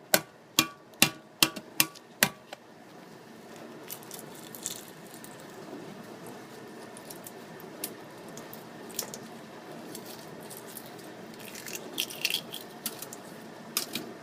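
Hard-boiled egg's shell tapped to crack it, six sharp knocks in about two seconds, then faint crackling and small clicks as the shell is peeled off. The shell is coming away easily from the baked egg.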